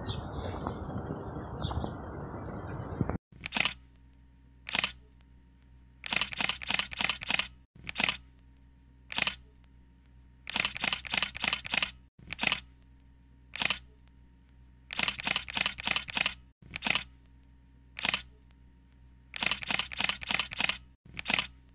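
Camera shutter clicks, some single and some in quick bursts of five or six, repeating at a few seconds' spacing over a faint steady hum. Before them, about three seconds of steady outdoor rushing noise that cuts off suddenly.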